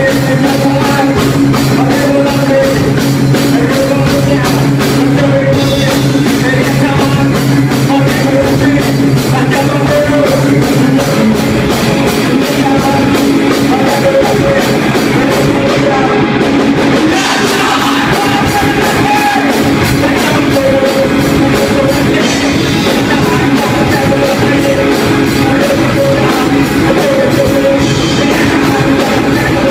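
Live rock band playing: electric guitar, bass guitar and drum kit, with a singer's vocals over them, loud and without a break.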